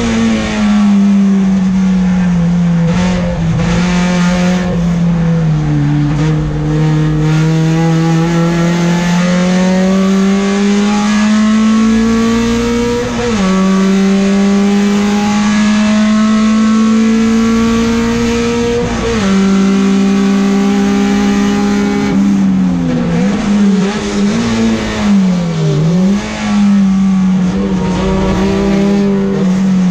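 Peugeot 405 STi race car's engine heard from inside the cockpit at racing speed. The note climbs steadily under full throttle and drops sharply twice, midway and again some seconds later, as the driver shifts up. Near the end the pitch dips and rises several times as the revs come off and go back on.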